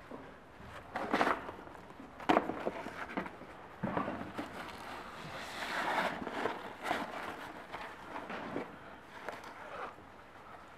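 Irregular knocks and scuffs with rustling, loudest about one and two seconds in, and a longer rushing noise in the middle.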